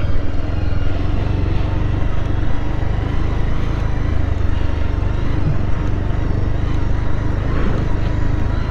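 Motorcycle engine running steadily, with a constant noise over it.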